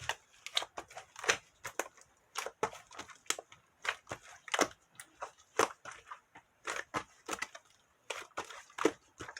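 Cloud slime and cheese slime being kneaded and squished together by hand: an irregular run of short wet pops and crackles, about two or three a second.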